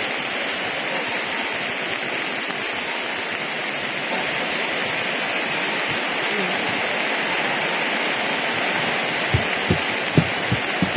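Large arena crowd applauding steadily, a dense even clatter of many hands. Near the end, low thumps begin at a steady beat.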